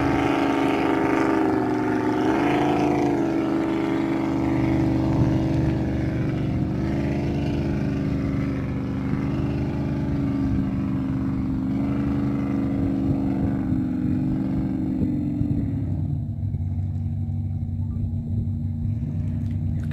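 Jet boat engine running at speed as the boat passes on the river: a steady drone with small rises and dips in pitch, fading away about three-quarters of the way through.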